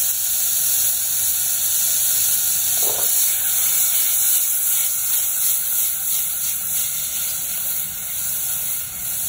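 Butter melting in a hot, steaming pot on a gas stove, giving a steady hiss.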